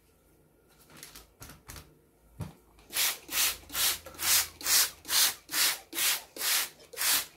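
Hand trigger spray bottle squirting onto paper, about ten quick sprays at a steady two a second, starting about three seconds in. Before that, soft sounds of the damp paper being pressed flat by hand.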